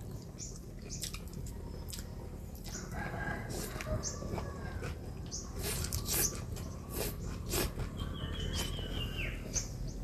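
Close-up eating sounds of noodles being slurped and chewed, with short sharp clicks scattered throughout. A rooster crows in the background.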